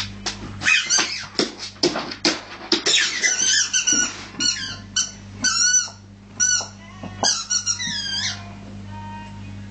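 Rubber squeaky ball squeezed over and over by a Rhodesian Ridgeback playing with it. The high squeaks come in quick clusters, each rising and falling in pitch, and stop about eight seconds in.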